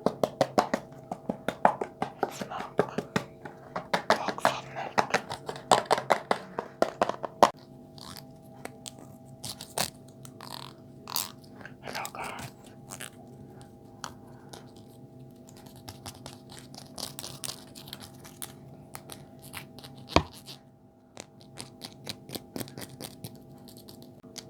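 Close-miked ASMR trigger sounds: rapid crisp clicks and taps, dense for the first seven seconds or so, then sparser clicks and soft scratchy strokes, over a steady low hum.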